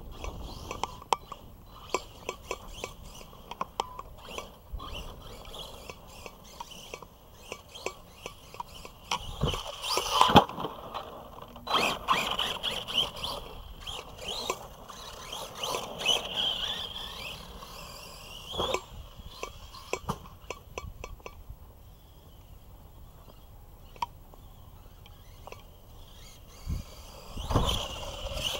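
Arrma Big Rock v3 radio-controlled monster truck driving hard on dirt: its electric motor and drivetrain whine, rising and falling with the throttle. Sharp clattering knocks come from jumps and landings, the loudest about ten seconds in, twelve seconds in and near the end.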